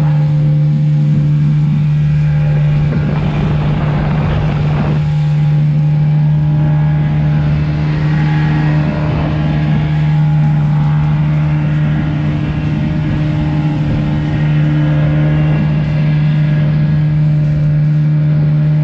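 Small boat's outboard motor running steadily at a constant cruising speed. There is a brief rush of wind or spray noise about four seconds in.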